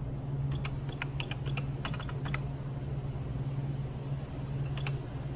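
Keys tapped on a keypad to clock in: a quick run of clicks for about two seconds, then a few more near the end, over a steady low hum.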